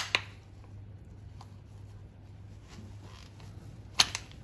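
Metal parts of a clutch pedal box clicking and knocking as they are handled and fitted: two sharp clicks together at the start, a faint one a little later and a loud one near the end, over a steady low hum.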